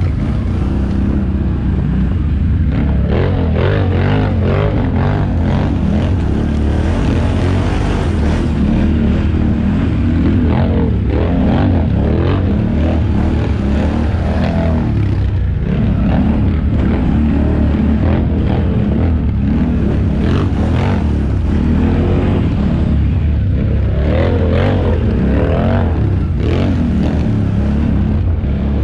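ATV engine running close by at trail speed, the throttle rising and falling, with clatter and knocks as the machine jolts over rocks and ruts.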